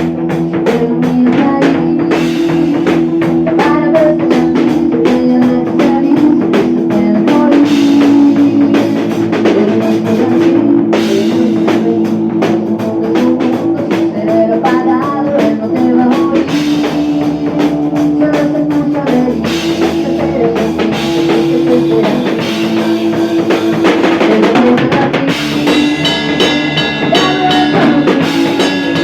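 Rock music: a band with drum kit and guitars playing at a steady beat.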